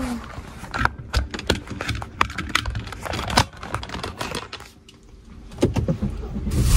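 Irregular light clicks and taps of things being handled close to the microphone inside a car, several a second, thinning to a brief lull just before five seconds in.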